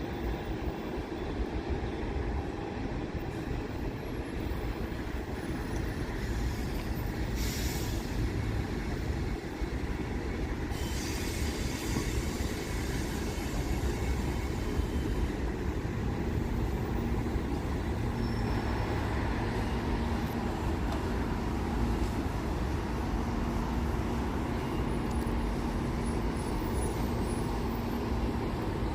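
Steady low engine rumble with some hiss, and a steady hum joining about halfway through.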